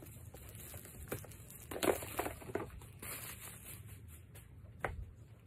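Crinkling and rustling of packaging wrap being pulled off a phone box by hand, loudest around two seconds in, with one sharp knock near the end.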